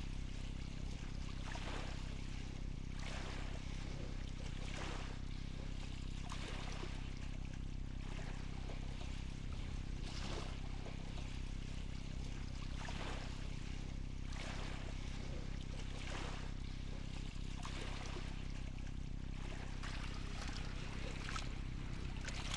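Shallow sea water lapping gently, a soft swell of wash every second or two, over a steady low hum.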